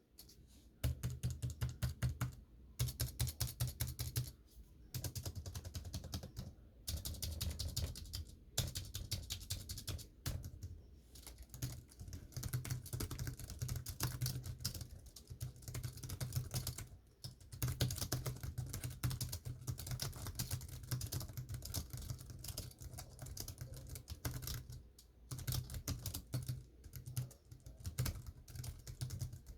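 Typing on a computer keyboard: fast runs of key clicks broken by short pauses every few seconds.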